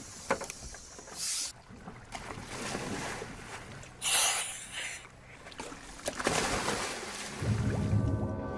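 Water splashing and rushing around a dive boat in three short bursts, as divers go into the water. Music comes in near the end.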